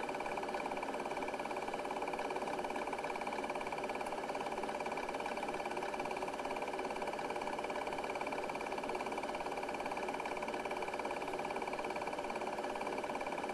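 Film projector running: a steady mechanical whirr with a very fast, even clatter.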